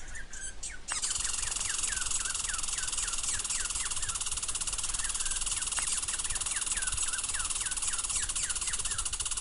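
Squirrel calling: a rapid series of short falling chirps, about two to three a second. A steady high-pitched buzz sets in about a second in and runs under the calls.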